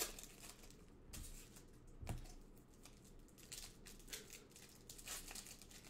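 Trading card pack wrappers being torn open and crinkled by hand, a faint, irregular rustling with a soft knock about two seconds in.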